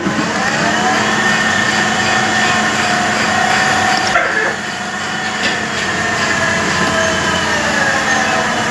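A metalworking machine tool running with a steady high whine over a mechanical drone. The whine rises in pitch during the first second, as a spindle coming up to speed does, and there is a short clink about four seconds in.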